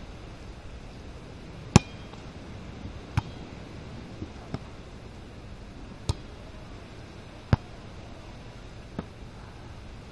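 A volleyball being struck by hands in a beach volleyball rally: about six sharp slaps roughly a second and a half apart, the first the loudest, over a steady background hiss.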